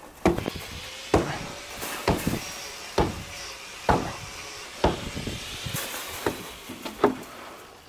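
Hammer blows on a wooden stake, a sharp knock about once a second at an even pace.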